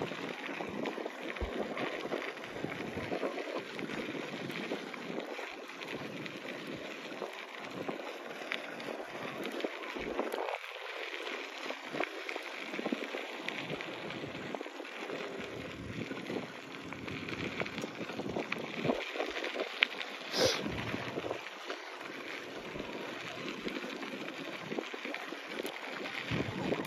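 Bicycle tyres rolling over a gravel road, a steady crunching hiss, with wind buffeting the microphone. A single sharp click about twenty seconds in.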